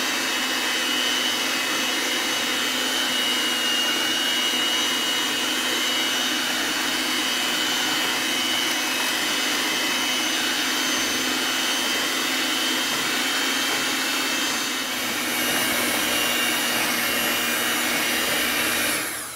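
Electric hand mixer running on high, its beaters whipping cream cheese, eggs and sugar in a glass bowl: a steady motor whine that dips briefly about three quarters of the way through and switches off at the very end.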